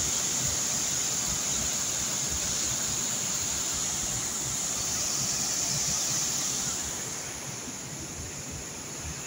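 Water overflowing a small dam's concrete spillway and rushing down a rocky stream bed, a full reservoir spilling over. It is a steady rush that drops somewhat about seven seconds in.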